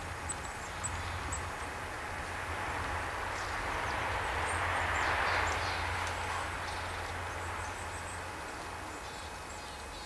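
Steady outdoor background noise with a low rumble, swelling and fading again around the middle, like a distant passing vehicle; a few faint, short high bird chirps come through near the start and again later.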